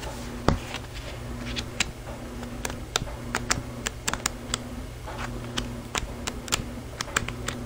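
Sheets of a 6x6 patterned cardstock paper pad being leafed through by hand: a string of light, irregular clicks and paper rustles as the pages are turned.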